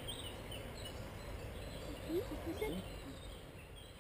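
Steady low rush of a river in flood, with birds chirping near the start and a brief murmur of a voice about two seconds in.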